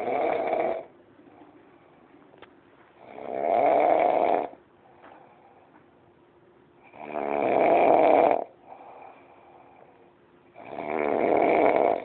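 A sleeping person snoring loudly and regularly: four long snores about every four seconds, each lasting over a second, with quiet between them.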